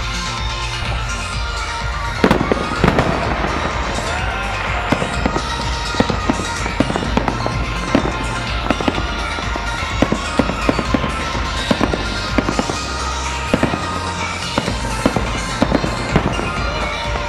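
Aerial fireworks shells bursting, with many sharp bangs several a second starting about two seconds in, over loud show music with a pulsing bass.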